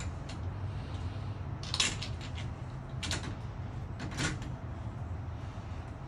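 Metal clicks and scrapes of deadbolt hardware being handled and fitted at the door's edge, with sharper clatters just under two seconds in and again around three and four seconds in, over a steady low hum.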